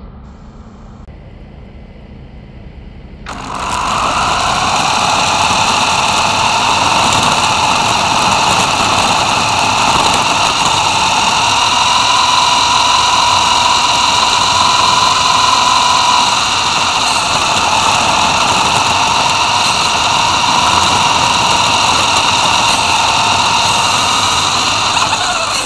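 Electric drive of a Rastar 1/16-scale GMC Hummer EV RC car (motor and gears) whining steadily as the car drives, heard close up from a camera riding on it. The whine starts about three seconds in, after a quieter stretch.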